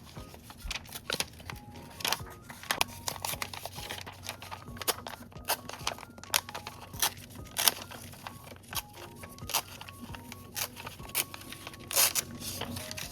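Paper being handled, torn and crinkled in irregular crisp rustles and rips, the longest rip near the end, over a soft background melody.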